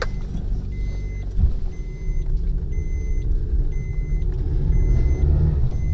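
Car driving, heard from inside the cabin: a steady low engine and road rumble, with a faint beep repeating about once a second.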